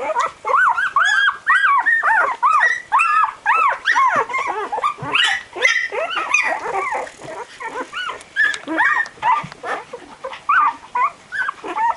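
A litter of 12-day-old Barbet puppies whining and squealing, many short rising-and-falling cries overlapping, thinning out in the second half. The puppies are crying as they search for their mother to nurse.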